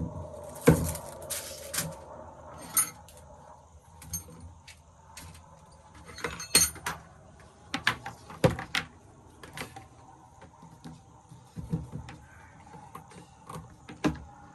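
Irregular clicks, knocks and light clinks of a power sander and its parts being handled and set up, the sander not yet running. The loudest knocks come about a second in and about eight seconds in.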